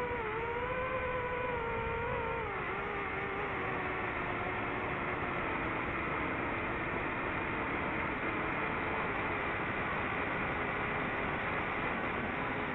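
Electric motor and propeller of an FPV model aircraft, picked up by its onboard camera, whining under a steady rush of wind noise. The whine drops in pitch twice in the first few seconds, then sinks into the wind.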